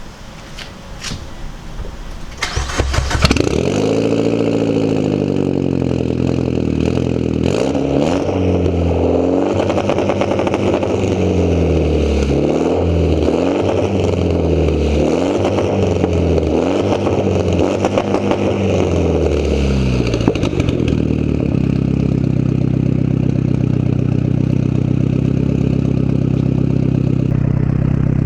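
Mitsubishi Lancer Evolution X's turbocharged 2.0-litre four-cylinder, exhausting through a freshly fitted ETS open-dump downpipe and test pipe, cranks and starts about three seconds in after a few clicks. It is revved in repeated blips for about fifteen seconds, then settles to a steady idle.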